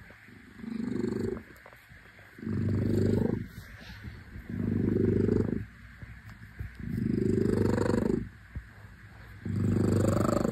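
A tabby Li Hua cat purring loudly while its chin is scratched. The purr comes in about five low, rumbling phrases of about a second each, one with each breath, with quieter gaps between them.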